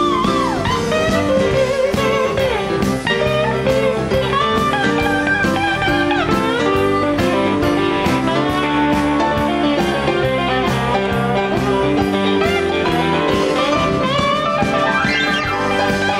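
Live blues-rock band in an instrumental passage: electric guitar playing bending lead lines over bass, keyboard and a steady drum beat.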